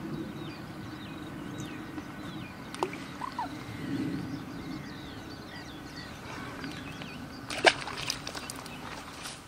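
Wind rumbling on the microphone with small birds chirping repeatedly, broken by a sharp click about three seconds in and a louder knock and rattle of clicks near the end.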